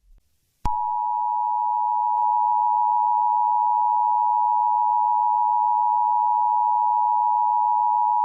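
Emergency Alert System attention signal: the steady two-tone alarm (853 and 960 Hz sounded together) that announces a new warning. It starts just under a second in after a brief gap and holds at an even pitch.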